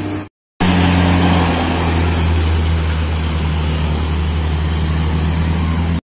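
Hino 500 tronton truck's diesel engine running with a steady low hum as the truck passes, with road noise. The sound cuts out for a moment just after the start.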